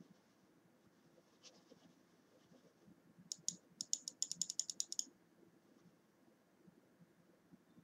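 Corsair Harpoon RGB mouse buttons clicking: a few faint single clicks, then about halfway through a rapid run of about a dozen light clicks lasting over a second.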